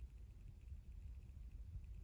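Near silence in a pause between a sleeping pit bull's snores: only a faint, uneven low rumble.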